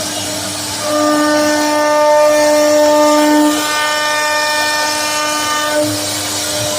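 CNC router spindle cutting wood: a steady, high machine whine over a constant hum. The whine comes in about a second in, is loudest for a couple of seconds, then eases and dies away near the end.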